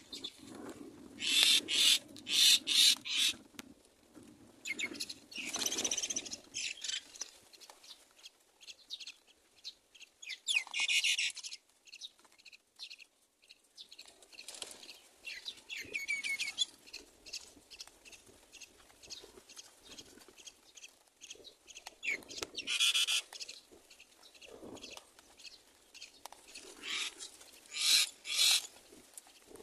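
Myna nestlings begging with short, scratchy calls in bunches every few seconds, loudest near the start and near the end.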